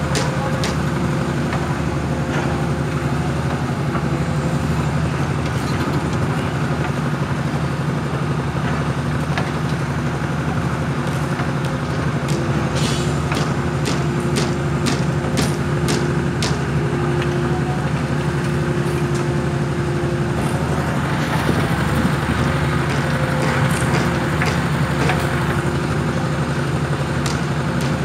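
Heavy-equipment diesel engine running steadily at a hydraulic static pile driver, with scattered sharp clicks and knocks over the drone; a hiss grows in about three-quarters of the way through.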